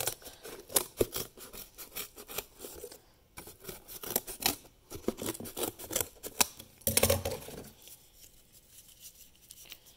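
Scissors cutting a thin strip from corrugated cardboard: a run of short, crisp snips and crunches. Near the end, quieter crinkling as the cardboard strip is bent back and forth to soften it.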